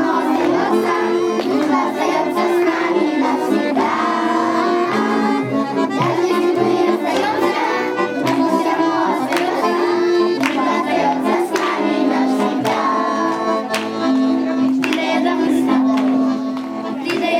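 Accordion playing a tune in held and changing notes, with sharp clicks scattered through it.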